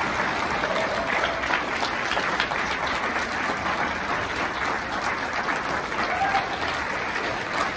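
Audience applauding steadily, with a few voices in the crowd.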